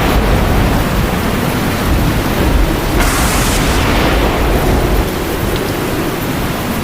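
Thunderstorm sound effect: steady heavy rain with a deep rumble of thunder, swelling briefly about three seconds in.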